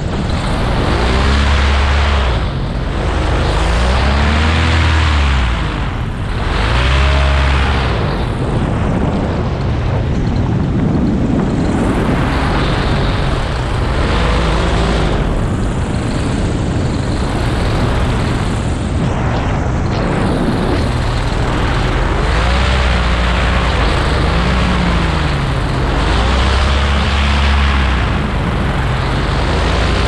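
Paramotor engine and propeller running in flight, its pitch repeatedly rising and falling, under heavy wind noise on the helmet microphone.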